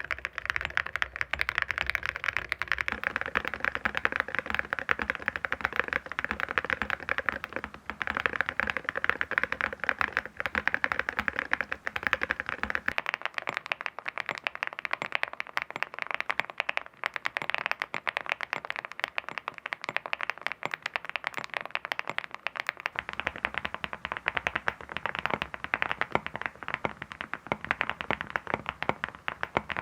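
Continuous fast typing on a mechanical keyboard fitted with full-metal copper keycaps, a dense run of hard clacks. About 13 seconds in the deeper thock drops out, leaving a thinner clacking, and it returns about 23 seconds in.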